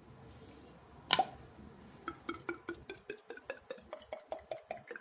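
Mouth clicks made as a beatbox sound effect: one loud sharp click about a second in, then a rapid run of tongue-like clicks at about five a second whose pitch shifts as the mouth changes shape.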